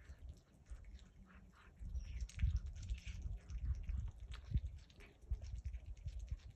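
Cat licking and chewing at a razor clam: a run of quick small wet clicks, with low thuds underneath from about two seconds in.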